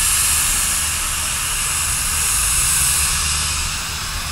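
Steady hiss of steam from running steam traction engines, with a low rumble underneath.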